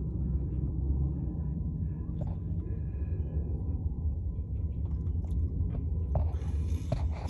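A steady low rumble, with a few light clicks and a short scraping hiss near the end.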